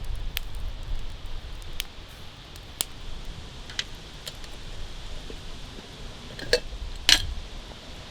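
Campfire crackling, with sharp single pops every second or so. Near the end come two louder knocks.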